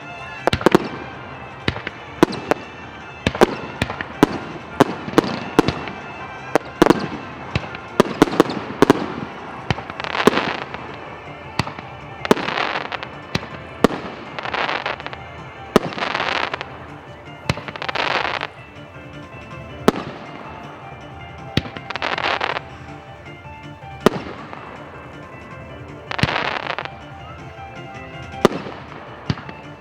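Fireworks going off in a rapid barrage: many sharp bangs close together for the first ten seconds or so, then sparser, longer noisy bursts about every two seconds. Music plays underneath.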